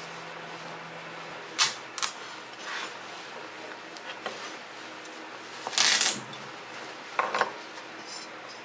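Chef's knife cutting through a kabocha pumpkin on a wooden cutting board: two sharp knocks of the blade about one and a half and two seconds in, a longer, louder cut about six seconds in, and two more short knocks a second later, over a steady background hiss.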